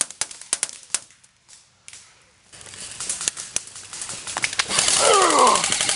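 A few sharp airsoft clicks in the first second, then, after a brief lull, a growing rush of rustling brush and scuffling as a player scrambles into the cover right by the camera, ending in a drawn-out falling vocal cry.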